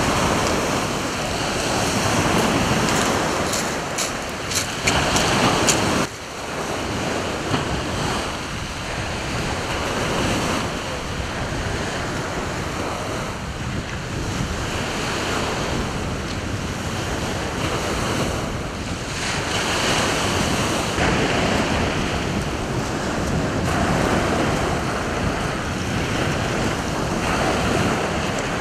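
Rough sea surf breaking and washing over a shingle beach, swelling and easing every few seconds, with wind buffeting the microphone. A few short crackles come between about four and six seconds in.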